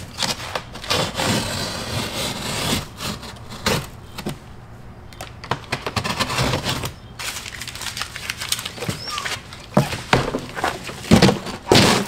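Large cardboard shipping box being cut open with a utility knife and torn by hand: rasping rips and scrapes of cardboard with many sharp knocks, and the heaviest thuds near the end as the front panel is folded down.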